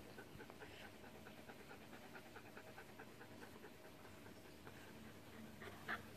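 Rough Collie panting close by: quick, faint, even breaths, about three a second, with one brief louder sound near the end.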